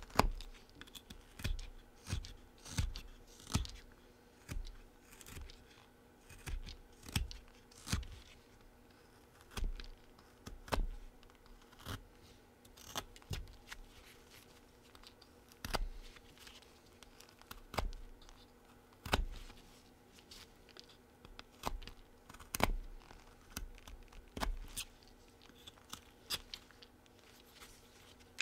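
Folding whittling knife slicing thin shavings off a small wooden carving, a run of short, crisp cuts at an uneven pace of roughly one a second as the head is rounded off.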